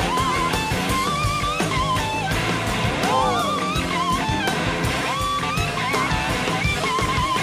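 Live rock-blues band playing, led by an electric guitar (a Gibson SG) soloing in long held notes with wide vibrato and a gliding swoop about three seconds in, over bass and drum kit.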